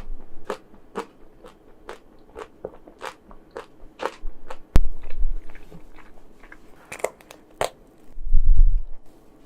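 Close-miked chewing of chocolate-coated ice cream, the hard chocolate shell giving sharp crunches about twice a second, sparser in the second half. A sudden low thud comes about halfway through and a low rumble near the end.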